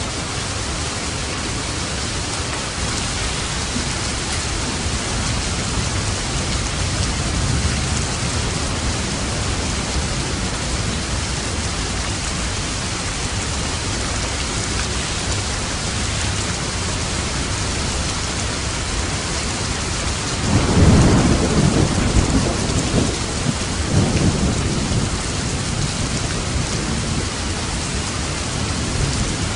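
Steady heavy rain falling, with a low rumble of thunder rolling in about two-thirds of the way through and swelling again a few seconds later before fading back into the rain.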